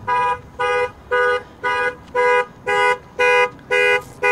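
A car horn sounding in a car alarm's panic pattern, one beep about every half second, set off to locate a parked car.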